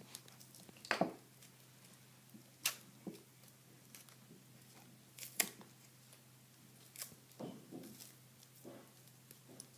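Scattered small clicks, taps and rustles at irregular intervals, about ten in all, from hands handling the parts and wiring of a stripped-down Traxxas Slash RC truck. A faint steady low hum runs underneath.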